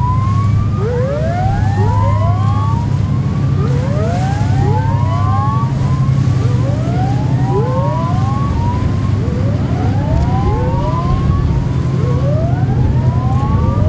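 Whooping sirens on patrol boats, two or more sounding out of step so that a new rising whoop starts about every second, over the loud steady low drone of boat engines.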